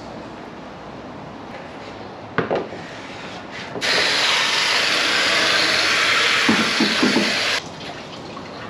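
A garden hose spray nozzle spraying water for about four seconds, starting and stopping abruptly. A single knock comes a little before it.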